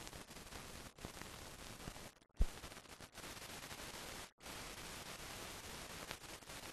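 Steady hiss of a silent film transfer, with a sharp click about two and a half seconds in and two brief dropouts where the sound cuts out.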